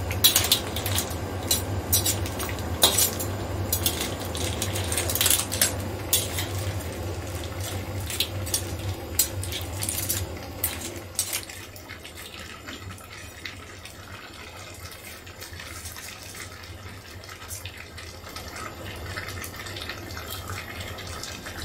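Metal slotted spatula scraping and clinking against a stainless steel wok as a seafood boil of lobster, crabs, clams and corn in broth is stirred. The clatter is busy for about the first half, then thins out and gets quieter.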